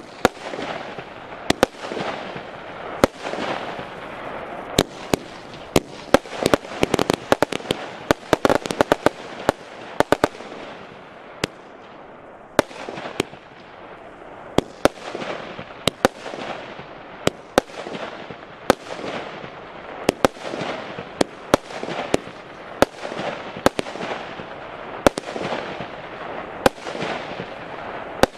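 A 100-shot, 20 mm consumer firework cake firing shot after shot. There are sharp reports roughly one or two a second, with a rapid flurry of cracks about a quarter of the way through, and each shot is followed by a fading hiss.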